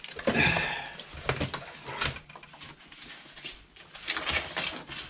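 Packing tape being pulled off a cardboard box by hand, with cardboard rustling and a rasp near the start, and a few knocks and clicks as the plastic spanner tray comes out of its cardboard sleeve.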